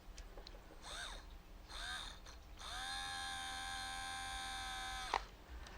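A small DC motor from an Omnibot 2000 toy robot, run on bench power as a test: two short whirs that spin up and wind down, then a steady whine for about two and a half seconds that cuts off suddenly. It runs, showing the motor works.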